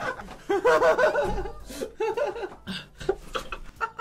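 A man laughing hard in two bouts, with a few short clicks near the end.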